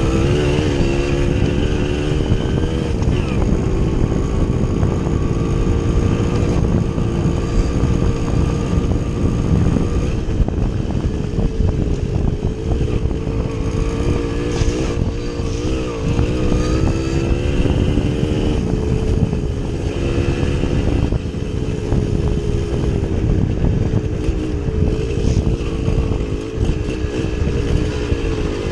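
Small two-stroke motorcycle engine running while riding offroad, its revs rising and falling again and again, over a heavy low rumble of wind and ground noise.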